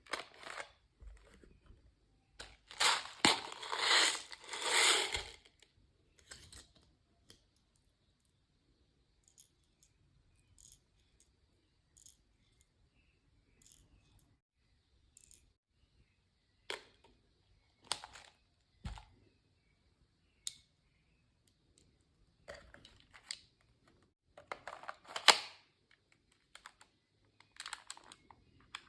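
Airsoft pistol being handled and loaded, with rattling and metallic clicks in short bursts, then a single sharp crack about 25 seconds in, the loudest sound: the pistol's shot.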